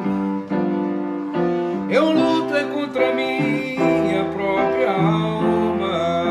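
Electronic keyboard playing slow sustained chords in a Christian worship song, with a sliding note about two seconds in.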